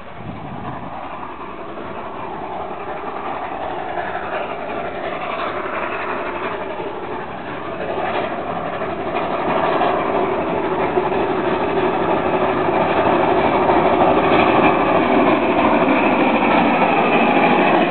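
Two NZR Ww-class steam locomotives double-heading a mixed freight train, their exhausts working as the train approaches and grows steadily louder.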